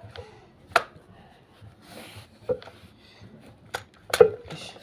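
Scattered sharp knocks and clicks, four of them with the loudest near the end, and a brief rustle in the middle: handling noise, with no engine running.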